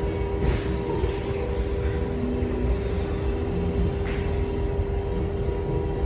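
Electric potter's wheel motor running at a steady speed, with a constant hum and whine over a low rumble.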